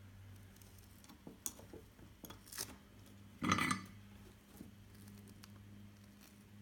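Small clicks and taps from handling a circuit board and tools, with one louder, brief rustling knock about three and a half seconds in, over a faint steady low hum.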